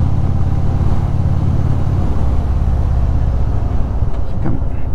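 Indian Super Chief Limited's air-cooled Thunderstroke V-twin running under way through a Rush exhaust, with steady wind noise over the microphone. The engine note shifts a little about two seconds in.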